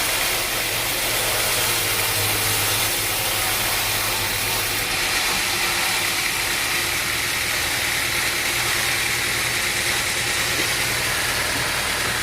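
Sawmill machinery running steadily: a low engine hum under a loud even hiss.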